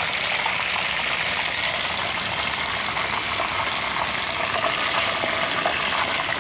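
Battered mushrooms deep-frying in hot oil in a pan: a steady sizzle with fine crackling.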